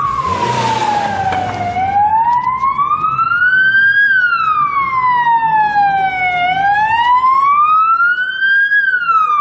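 Emergency vehicle siren in a slow wail, rising and falling about every five seconds, with a brief rush of noise in the first second.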